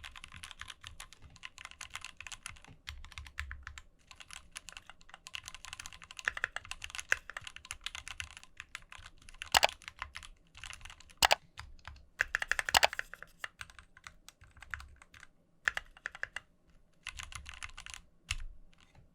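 Continuous typing on a Keychron Q4 60% mechanical keyboard: fast runs of key clacks with short pauses and several louder, heavier strokes. The typing stops just before the end.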